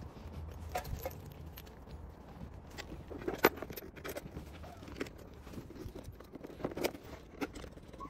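Scattered light clicks and metallic clinks of hand tools, screws and scooter parts being handled, sped up fourfold; the sharpest clink comes about three and a half seconds in.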